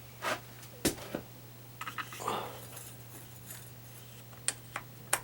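Small metal parts of a string trimmer's blade mount (saw blade, washers and locking nut) clinking and clicking as they are fitted and tightened by hand: a few scattered sharp clicks, the loudest a little under a second in, a short cluster around two seconds in and a few more near the end.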